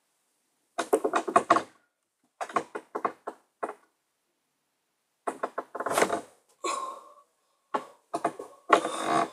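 Four bursts of quick knocks and thumps from a child moving close by and landing on a bed.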